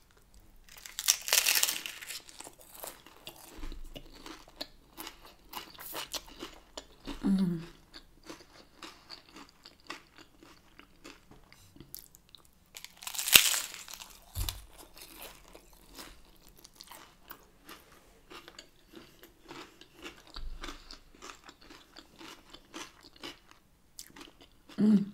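A crisp tortilla topped with shrimp ceviche, bitten with a loud crunch about a second in and again about halfway through, then chewed with many small crunches.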